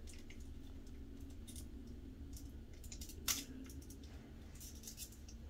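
Foil Pokémon booster pack wrapper being picked and pulled at its sealed edge by hand, giving faint scattered crackles and ticks, the sharpest about three seconds in. The stiff wrapper is resisting being torn open.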